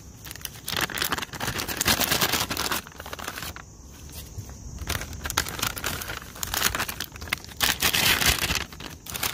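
Plastic flameless ration heater bag crinkling and rustling as it is handled, in several bursts, loudest about two seconds in and near the end.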